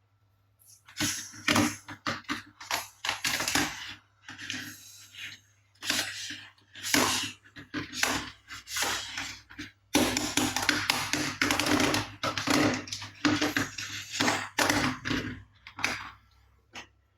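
Toy cars being handled and moved about on a hard surface: an irregular run of plastic clicks, knocks and short scraping rattles, busier in the second half.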